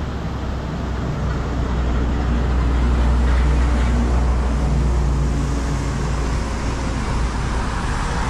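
Heavy goods trucks driving past on a wet highway: a continuous low engine rumble with tyre noise from the wet road.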